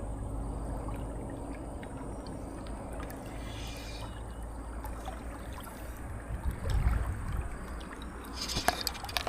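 Steady running river water with a low rumble, swelling briefly about two-thirds of the way through, and a few light clicks near the end.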